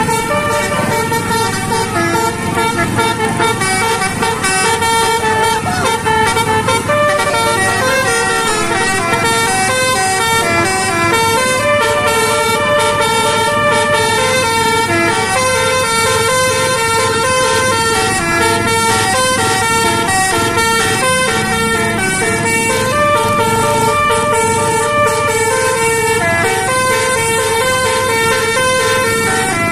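Bus 'telolet' horn, a multi-tone electric horn playing a tune of quickly changing notes, several tones sounding together without a break.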